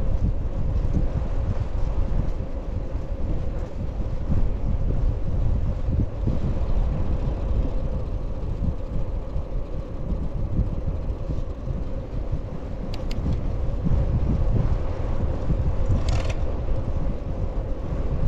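Strong wind buffeting the microphone of a cyclist riding into a headwind, a constant low rumble with a faint steady hum underneath. A couple of light clicks come about two-thirds of the way through, and a short hiss follows a few seconds later.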